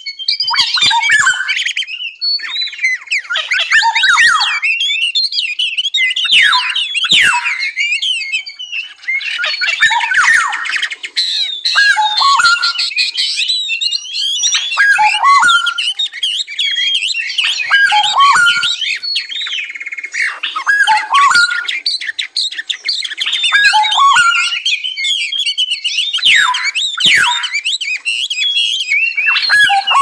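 Several songbirds singing and calling over one another: a dense, unbroken mix of quick chirps, whistles and squawks, with many short falling notes.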